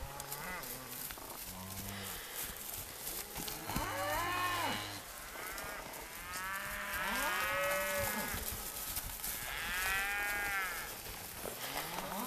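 Calves bawling, with several long calls a couple of seconds apart.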